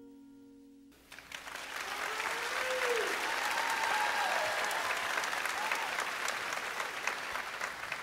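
The last held chord of the music fades, then an audience bursts into applause about a second in, with a few voices cheering over the clapping.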